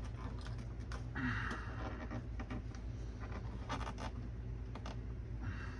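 Small clicks and short scratchy rustles of hands and tools handling a pull-pull rudder cable on a model aircraft's tail, over a steady low hum.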